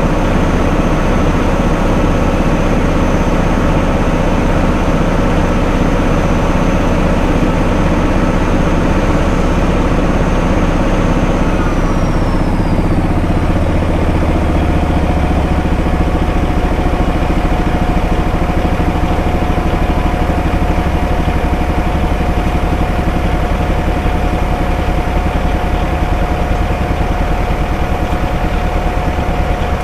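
Wood chipper's engine and machinery running steadily. About twelve seconds in, a high whine drops in pitch as something in the machine winds down, and a lower steady hum carries on.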